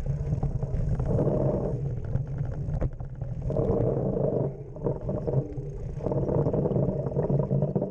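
Trek Stache 8 mountain bike rolling down a dirt trail: tyre and trail rumble with wind on the camera's microphone, and a strange, weird noise from the bike that swells three times, about a second in, around the middle and near the end. It is the sign of the disc brakes acting up and stuttering.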